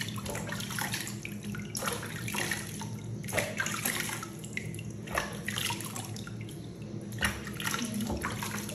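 Water splashing and sloshing in a plastic basin as hands scoop it and pour it over a baby monkey's head and back, in irregular splashes.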